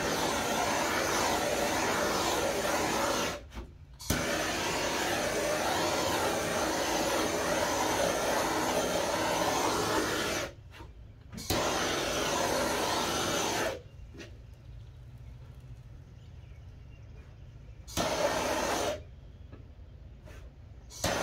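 Heat gun blowing hot air to evaporate the alcohol from wet dye layers. It is switched off and on several times, in stretches of a few seconds with short breaks, ending in a brief burst.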